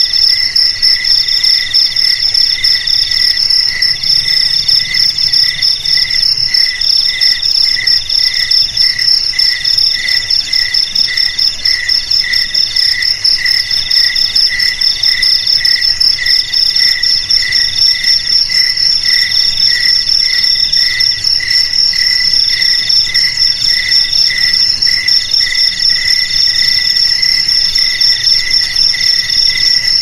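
Several crickets chirping together at different pitches without pause. One keeps up an even pulsing, and another trills in stretches of about a second with short breaks.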